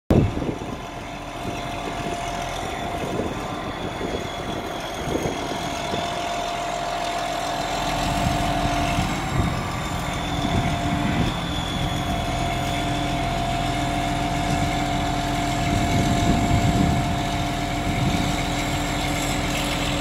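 Freightliner concrete pump truck's diesel engine running and driving the hydraulics of a Putzmeister 52-metre boom as it unfolds, with a steady whine over the engine. The engine note gets heavier about eight seconds in.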